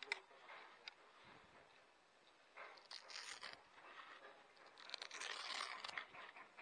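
Faint rustling and scraping from handling a spinning rod and reel, in two short stretches about three seconds in and again around five seconds in, with a few light clicks.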